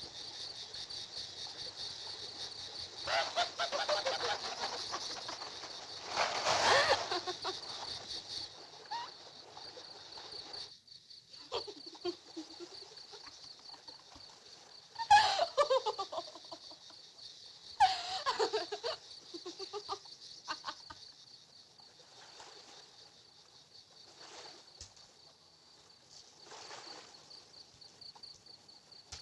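A steady high insect chirring, typical of cicadas in summer pine scrub, with several short bursts of a young woman's laughter and giggling rising over it. The loudest laughs come about halfway through and again a few seconds later.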